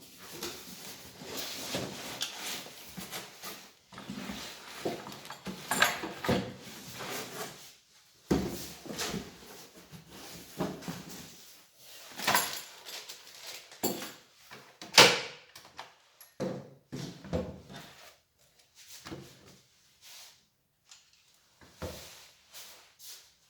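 Unboxing handling: a cardboard box and packing being opened and moved about, with irregular rustles, scrapes and knocks.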